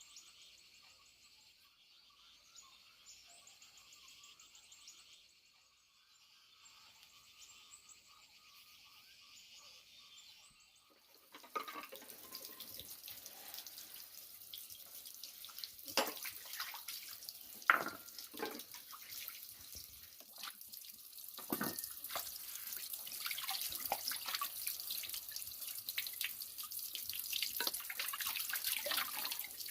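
Faint insects chirring for about the first ten seconds, then water running and splashing steadily, with a few sharp knocks or clatters, as at a tap or basin being used for washing.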